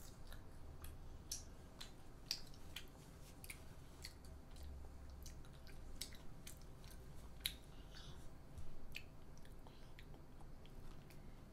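A young child chewing banh xeo, a crisp Vietnamese crepe, with irregular small mouth clicks and smacks.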